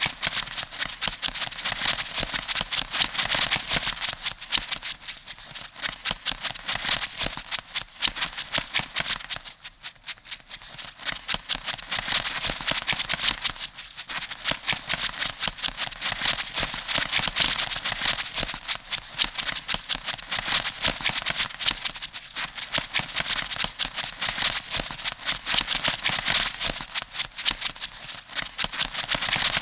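Crab sound effect: a dense, rapid clicking rattle that runs on, dipping briefly about ten and fourteen seconds in.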